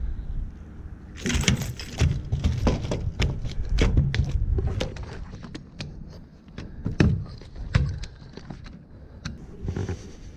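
Irregular clicks, rattles and knocks of a fish and fishing gear being handled on wooden dock boards: a landing net is set down, the salmon is taken out and laid on the boards, and a metal tape measure is pulled out. Wind rumbles on the microphone throughout.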